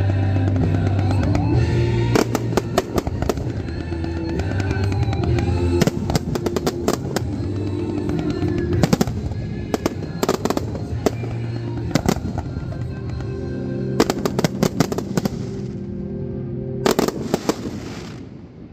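Fireworks bursting and crackling in rapid volleys over a music soundtrack. Near the end the music fades out and a last cluster of bangs sounds.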